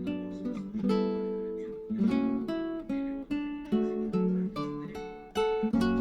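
Background music: acoustic guitar playing, plucked and strummed chords that ring out and fade between strokes.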